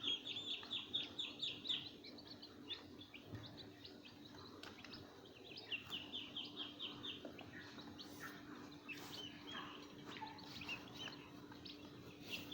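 Young chicks peeping: quick runs of short, high notes, several a second, at the start and again about six seconds in, with scattered single peeps in between. A faint steady hum runs underneath.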